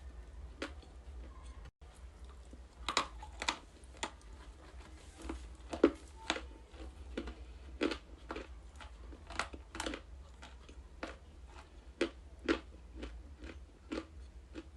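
Close-miked crunching as ice is bitten and chewed: irregular sharp crunches, loudest about six seconds in.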